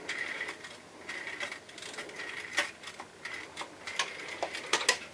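Rotary telephone dial being wound and spinning back several times, each return a short run of rapid clicks, with a few sharper clicks near the end.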